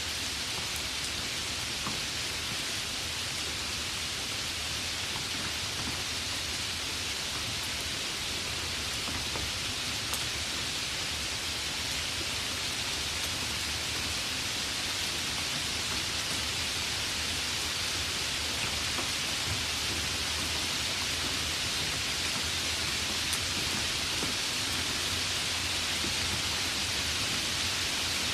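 Heavy rain falling steadily, an even hiss with occasional faint drop ticks.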